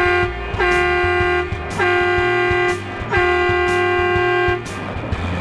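Semi-truck horn sounding four blasts of one steady pitch, the first short and the last the longest, over background rock music.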